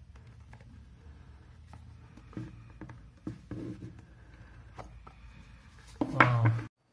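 Cardboard smartphone box handled and its lid slid off: faint rubbing and a few soft taps of the cardboard over a low steady hum. A short burst of a man's voice near the end is the loudest sound.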